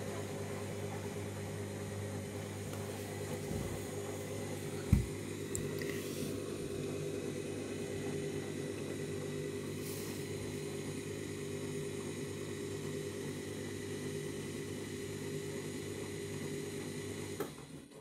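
Candy Grand'O Vita 7 kg front-loading washing machine running a 90-degree boil wash: a steady motor hum as the drum turns its water and suds, with a single knock about five seconds in. The sound cuts off near the end.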